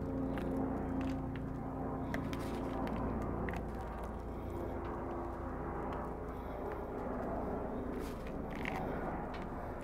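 Steady low rumble of a helicopter in the area, with a few faint ticks and taps over it.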